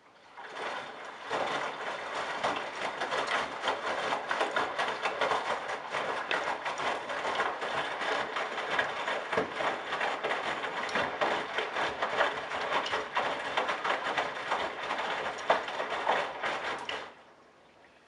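Wet laundry tumbling in the turning drum of a Candy GrandO Simply-Fi front-loading washing machine, a steady rustling slosh with many small clicks. The drum starts turning about half a second in and stops abruptly about a second before the end.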